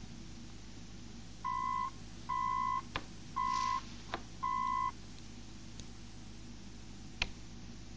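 Four short electronic beeps, each a steady tone of about half a second, from a Moonbase Alpha communicator signalling an incoming call. A few soft clicks fall between and after them.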